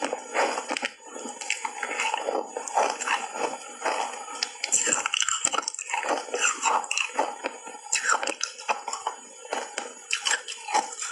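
Ice chunks coated in matcha powder being bitten and chewed, a dense run of irregular crisp crunches.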